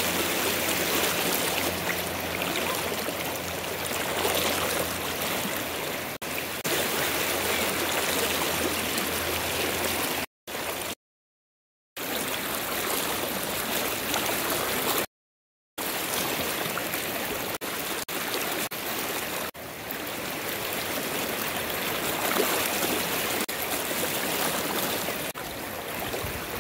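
River water flowing and rushing steadily, broken by three brief gaps of dead silence.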